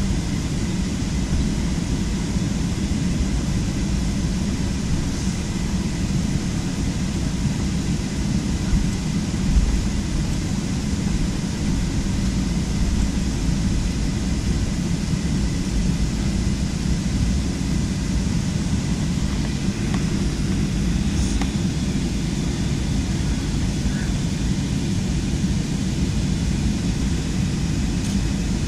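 Cabin noise of a Boeing 737 jet airliner: a steady, deep rumble of engines and airflow, with faint high tones above it and a few light ticks near the end.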